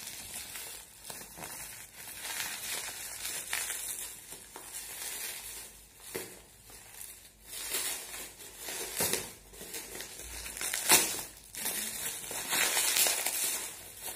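Bubble wrap and plastic packaging crinkling and rustling as a parcel is unwrapped by hand, with irregular louder crackles, the loudest about eleven seconds in.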